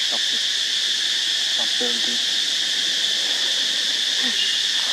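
Steady, high-pitched drone of an insect chorus in the trees, with a few faint, short vocal sounds now and then.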